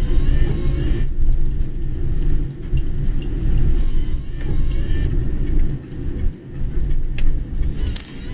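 A car driving, with a steady low rumble of engine and tyres on the road and a couple of sharp clicks near the end.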